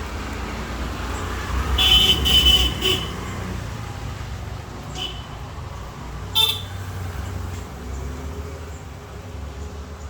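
Street traffic with a low engine rumble, and a high-pitched vehicle horn tooting in a quick series about two seconds in, then two short toots later on.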